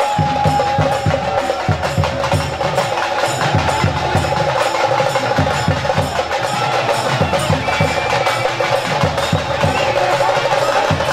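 Procession music at a temple festival: drums beating quickly with clattering percussion, over a few long held notes.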